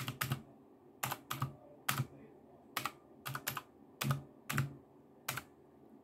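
Keys on a Royal Kludge typewriter-style mechanical keyboard with round keycaps pressed one at a time: about a dozen separate clacks at uneven spacing, stopping about five seconds in.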